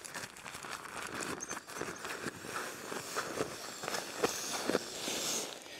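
Nylon fabric rustling and crinkling with scattered small clicks as the pump sack of a Zenbivy inflatable sleeping mattress is handled and pushed over the mattress's inflation valve.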